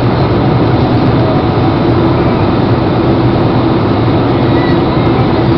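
Jet airliner cabin noise in flight: the steady rush of engines and airflow heard from inside the cabin, with a low hum under it.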